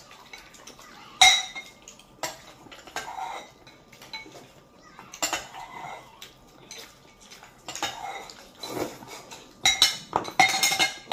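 Tableware clinking during a meal: utensils tapping bowls and plates in scattered sharp clinks, the loudest about a second in and several close together near the end.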